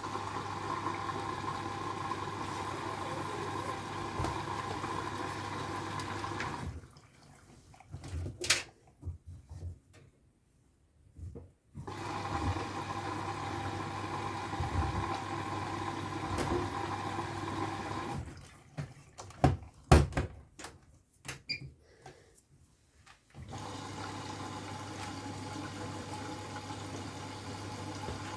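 Bosch HomeProfessional washing machine taking in water: a steady rush of water with a low hum runs in three stretches. Between them, during two pauses, there are scattered clicks and knocks.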